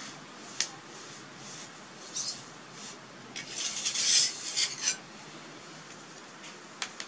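Scratchy rustling and scraping, loudest in a run of about a second and a half around the middle, with a sharp click before it and two more clicks near the end.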